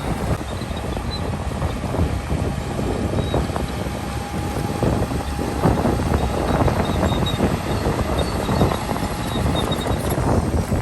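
Heavy diesel earthmoving machinery running steadily under load, the bulldozer engine with rough rattling and occasional knocks.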